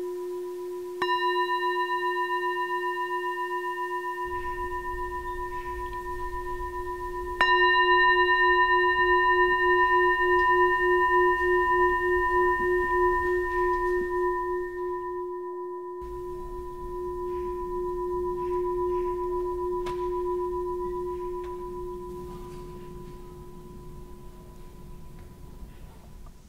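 Metal singing bowl struck with a wooden mallet twice, about a second in and again about seven seconds in. Each strike sets it ringing with a wavering hum that slowly dies away.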